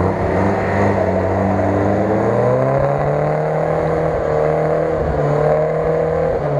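UAZ-469 off-road engine revving hard under load as the truck churns in deep mud, barely moving. The pitch climbs about two and a half seconds in, holds high, and drops back near the end.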